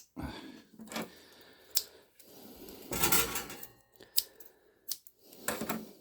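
Small parts and thread being handled by hand: irregular sharp clicks and taps with rustling between them, the densest clatter about halfway through.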